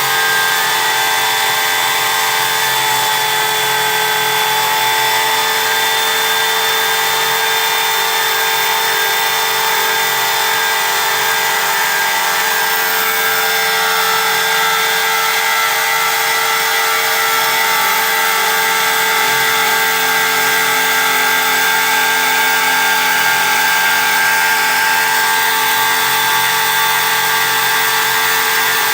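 CNC machine running steadily while it cuts or engraves: a continuous power-tool whine made of several steady tones over a hiss, with slight shifts in pitch as it works.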